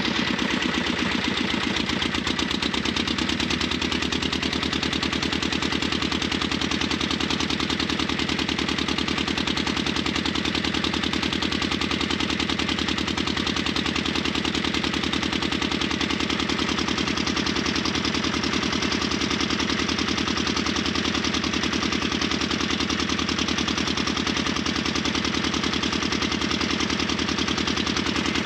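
Small boat engine running steadily under way, a rapid, even knocking close by.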